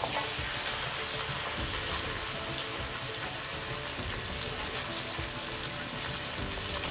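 Pieces of pork and potato frying steadily in ground spice paste in a metal kadhai, a continuous sizzle.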